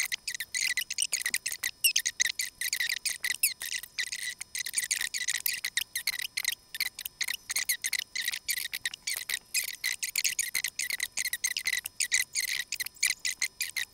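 Computer keyboard typing: quick, irregular key clicks, several a second, sounding thin and high-pitched, as numbers are keyed into a form.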